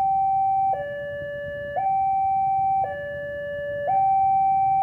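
Railway level-crossing warning alarm sounding a two-tone hi-lo signal that swaps pitch about once a second, the higher tone louder. It warns that a train is approaching and the crossing is closed.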